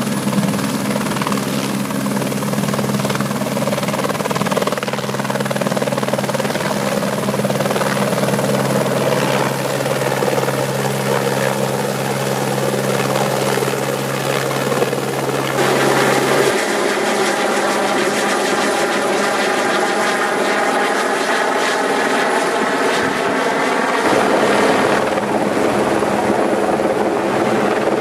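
AS350 AStar-type single-engine helicopter running with its rotor turning as it lifts off and hovers. About sixteen seconds in the sound changes abruptly: the low hum drops out and a higher, many-toned whirr takes over.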